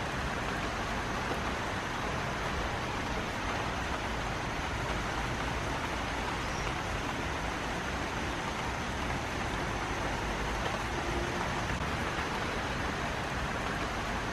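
Heavy rain falling steadily, an even hiss with no breaks.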